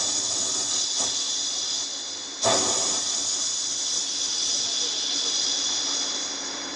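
A man imitating the jingle of ghungroo, small brass ankle bells, with his throat: a continuous hissing shimmer that starts abruptly and strikes in again about two and a half seconds in.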